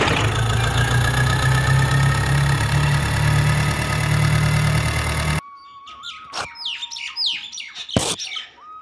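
Miniature toy tractor's motor running as the model drives off: a steady low hum with a slowly rising whine above it, cutting off suddenly about five seconds in. Birds then chirp repeatedly in the quieter background.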